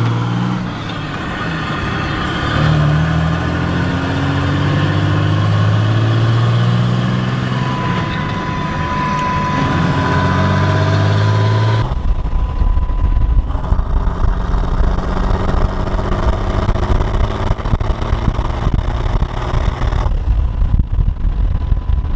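A 2006 Ram 3500's 5.9-litre Cummins turbodiesel running under load while being driven through a manual gearbox, heard from inside the cab, its pitch rising and falling with throttle and gear changes. About halfway through, the engine note gives way to a low, gusty rumble of wind and road noise.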